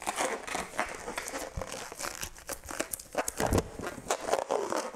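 Latex modelling balloons being handled and twisted: irregular rubbery squeaks and crinkling rubs.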